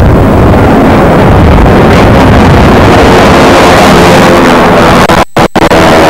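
Propeller-driven racing plane's piston engine running close by, loud enough to overload the recording, with two brief dropouts about five seconds in.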